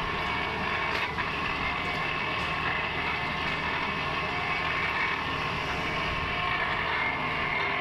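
Portable shaft machining machine running steadily with a whine while it machines a shaft.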